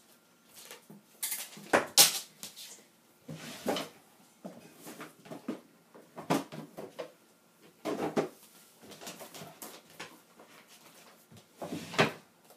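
Someone rummaging off to one side, with a string of irregular knocks and clatters as objects are moved and set down. The loudest come about two seconds in and near the end.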